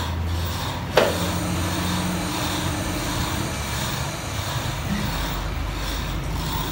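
Steady workshop background noise with a low hum, broken by one sharp knock about a second in.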